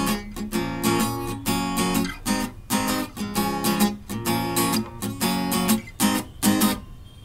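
Acoustic guitar strumming chords in a steady rhythm, about two strokes a second.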